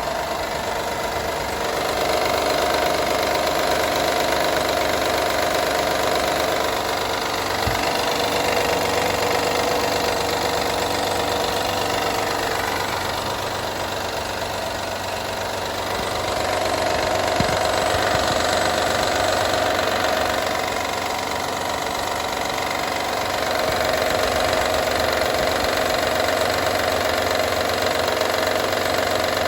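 2012 Honda Odyssey's 3.5-litre V6 running with a rattle, its level rising and easing in slow swells every several seconds. The cause of the rattle is unknown.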